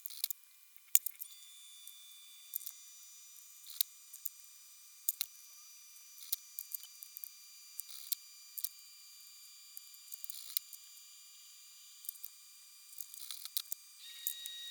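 Small sharp clicks and taps at irregular intervals, the loudest about a second in, from tools and parts being handled while a DIY electronics kit is soldered. A faint steady high-pitched whine runs underneath.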